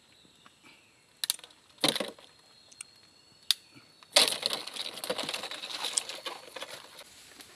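Handling noise among rocks and dry leaves: a few sharp knocks and clicks, then about three seconds of rustling and scraping from about four seconds in, as stones and leaf litter are moved by hand in the search for crabs.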